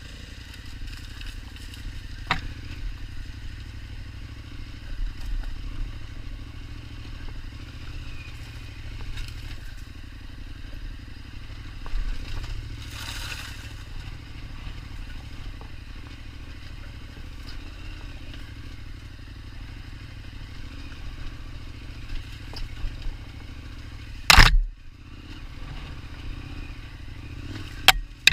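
KTM 1290 Super Adventure's V-twin engine running at low, steady revs, with clatter and knocks from the bike over rough ground. One loud sharp knock comes near the end.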